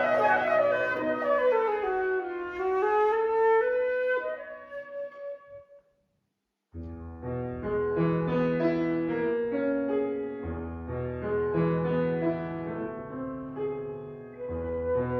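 Flute and piano playing a classical piece. Quick runs of notes sweep down and back up, then a gap of complete silence under a second long falls near the middle. After it, piano chords and bass notes return beneath held flute notes.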